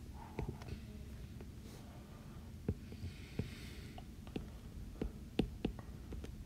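Stylus tapping and drawing on a tablet screen: a string of faint sharp taps, with a short soft hiss of a stroke around three seconds in, over a low steady hum.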